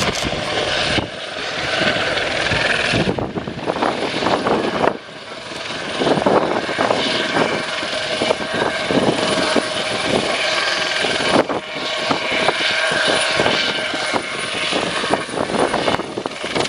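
Airbus Helicopters H120 Colibri flying a display: its turboshaft engine and rotors run with a steady whine over a rapid rotor beat. The loudness swells and dips a few times as it manoeuvres.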